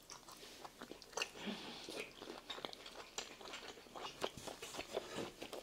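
A mouthful of medium-rare beef sirloin steak being chewed, with irregular small mouth clicks and smacks.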